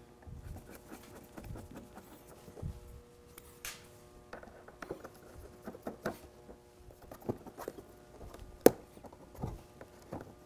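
Light taps, scrapes and clicks of hands working a metal mesh front grille loose from the plastic front fairing of a Can-Am Spyder RT, with one sharper click about eight and a half seconds in.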